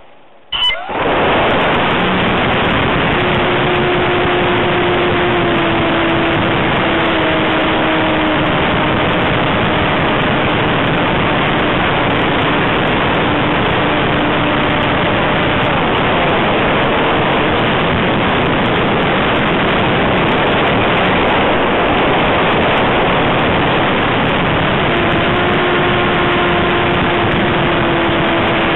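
Cub airplane in flight heard from its onboard camera: a steady, loud rush of engine, propeller and airflow that starts abruptly about half a second in. A faint propeller tone in it dips slightly in pitch a few times.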